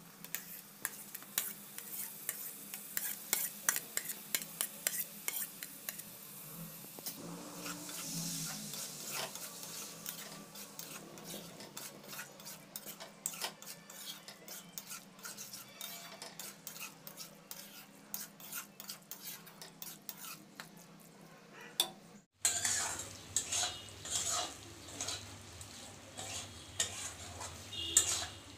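Metal spatula stirring crumbled paneer into masala in a kadai: quick, irregular scrapes and taps against the pan with a light sizzle underneath. The sound cuts out for a moment about three quarters of the way through.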